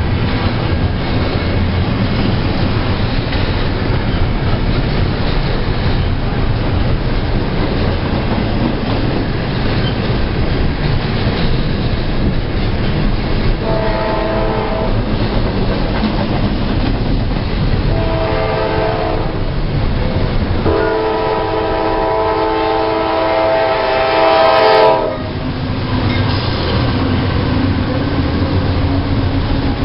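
Freight train passing close by, its locomotives and cars rumbling steadily on the rails. A multi-tone train horn sounds three times: two shorter blasts around the middle, then a long blast of about four seconds near the end.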